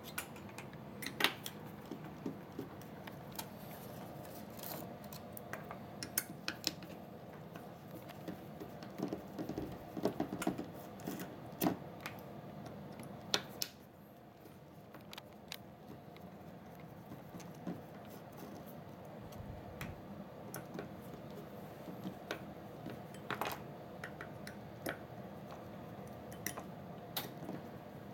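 Scattered small metal clicks and clinks of a hex key and screws working on an airsoft electric gun's gearbox shell as it is unscrewed for disassembly, with a few sharper knocks about a second in and between ten and fourteen seconds in.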